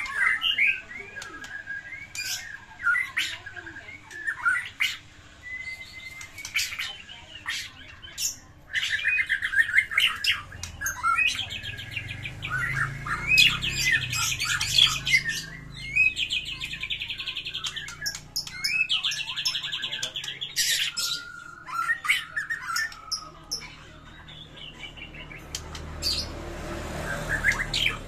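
White-rumped shama singing a loud, varied song in fighting mode: clear whistled notes and sharp clicks, then from about a third of the way in several bursts of fast rattling trills separated by short pauses.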